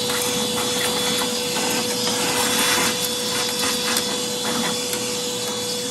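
Vacuum cleaner running steadily with a constant whine, sucking up debris.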